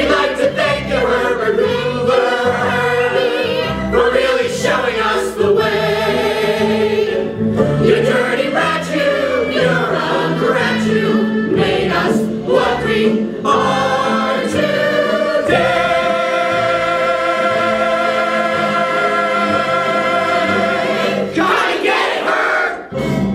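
A group of voices singing together with instrumental backing, building to one long held final chord about two-thirds of the way through that stops shortly before the end.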